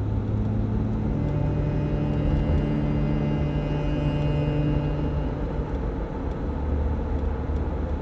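Car driving, steady road and engine rumble heard from inside the cabin, with a few low sustained tones that shift in pitch now and then.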